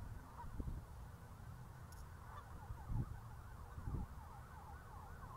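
Faint siren sweeping quickly up and down in pitch, a few sweeps a second, growing steadier about two seconds in. There are low bumps on the microphone about three and four seconds in.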